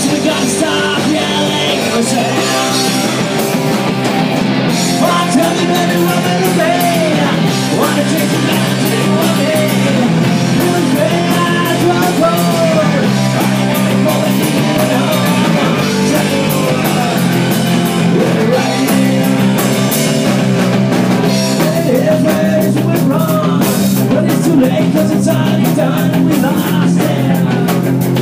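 Live rock band playing loud, with electric guitars, bass and drum kit running steadily throughout.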